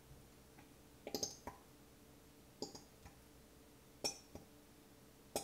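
A few light clicks and clinks, about a second or more apart, from a plastic squeeze bottle of honey being handled and squeezed over a blender cup.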